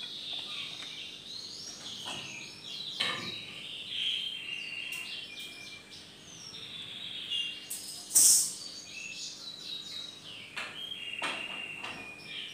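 Small birds chirping and twittering continuously in quick, high notes. About eight seconds in there is a single short, sharp hissing scrape, the loudest sound.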